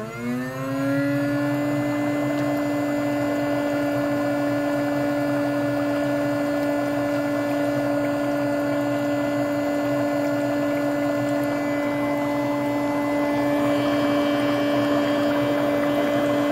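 Electric foot spa's bubble motor starting up, its hum rising in pitch over the first second, then running with a steady hum over bubbling water.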